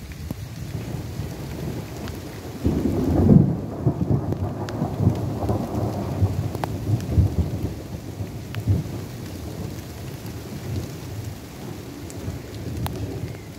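Thunder: a low rumble that breaks in suddenly about two and a half seconds in, peaks a moment later, then rolls on in uneven waves for several seconds and slowly eases off. Rain falls throughout, with scattered drop ticks.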